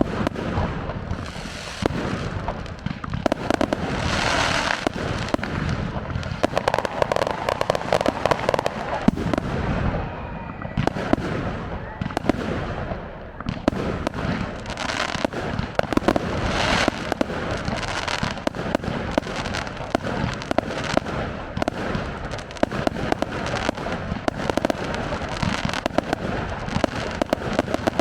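Fireworks display: a dense, unbroken barrage of overlapping bangs and crackling from aerial shells going off in quick succession.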